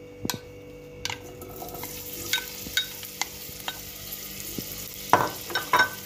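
Sliced onions sizzling as they drop into hot oil in a stainless steel pot, the hiss setting in about a second in. A spoon knocks and scrapes against the pot several times, most densely near the end as the onions are stirred.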